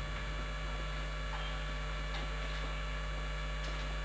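Steady electrical mains hum, with a few faint, short squeaks of a marker writing on a whiteboard.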